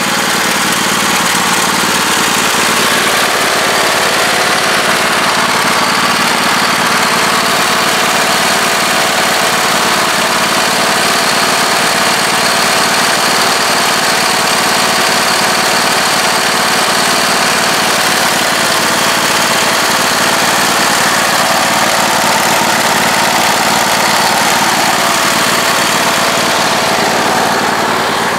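Husqvarna YTH2448 lawn tractor's Briggs & Stratton engine running steadily at an even pitch.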